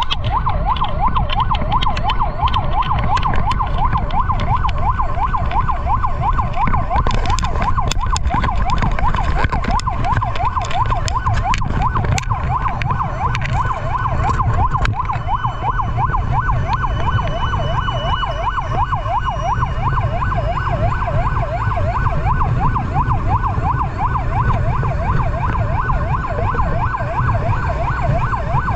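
Fire truck's electronic siren sounding a fast, unbroken yelp, with the truck's engine and road rumble underneath.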